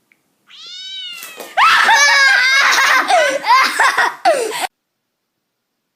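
A cat meowing: one drawn-out meow that rises and falls, then a loud run of quick yowls that sweep down in pitch, cutting off suddenly a little before five seconds in.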